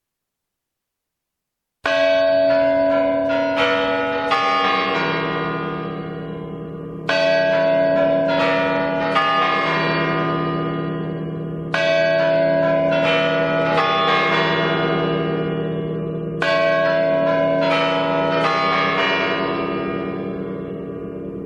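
Church bells ringing. About two seconds in, a quick run of several strokes begins, and the same run starts over four times, about every five seconds, each time fading over a lingering low hum.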